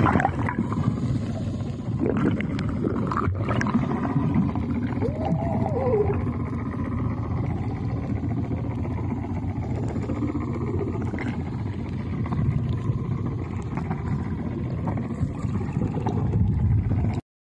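Underwater ambience picked up by a submerged camera: a steady muffled low rumble of water with scattered gurgles and clicks, and a short rising-and-falling tone about five seconds in. It cuts off suddenly just before the end.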